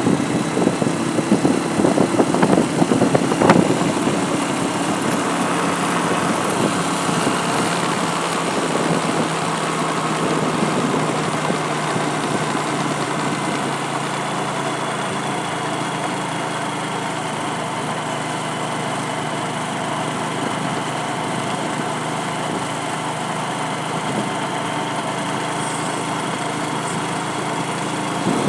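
Vehicle engine running at a steady pitch, with some knocks and rattles in the first few seconds.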